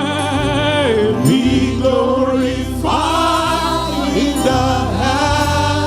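Choir and congregation singing a slow gospel worship chorus, held notes with vibrato, over a steady bass accompaniment.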